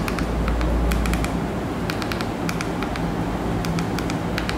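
Small plastic buttons of a TV remote clicking in quick runs of two or three presses as the on-screen keyboard is navigated, over a steady background hum.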